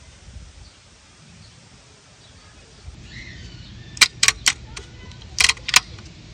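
Sharp clicks or clinks in two groups of three, one group about four seconds in and the next about a second later, over a faint steady outdoor background.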